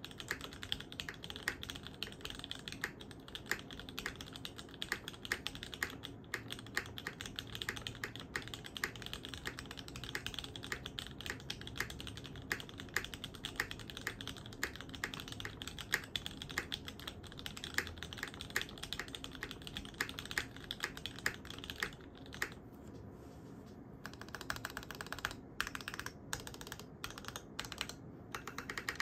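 Typing on a gasket-mounted 65% custom mechanical keyboard with a full carbon fibre plate, lubed Gateron Milky-top Tealios linear switches and DCS keycaps: fast, steady keystrokes, with a short pause a little over twenty seconds in and then a few slower, separate strokes.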